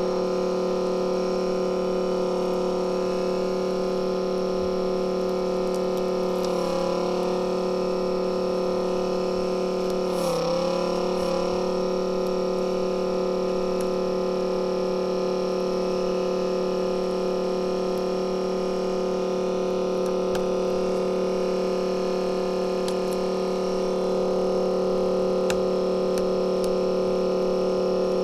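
Steady electrical hum made of several unchanging tones at an even level, with slight faint disturbances about six and ten seconds in.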